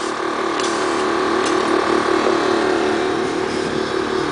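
Van air-ride suspension system running as the airbags are let down: a steady mechanical hum with some hiss and a few faint clicks.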